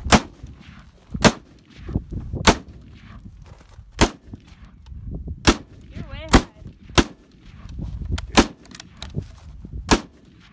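Rifle gunfire: about nine sharp shots, one every second or so.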